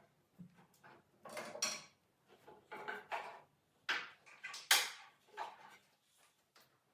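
Metal tools and parts being handled: a series of irregular clinks and knocks with short gaps between them.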